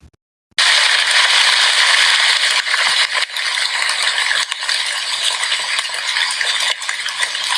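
Rain falling: a steady, dense hiss of rain that starts about half a second in.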